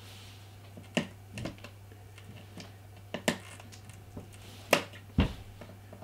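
A pen cap prodding at the recessed memory-door release button above the power port on the back of an iMac with Retina 5K: a handful of light, irregular clicks and taps, with a heavier low knock near the end, over a low steady hum.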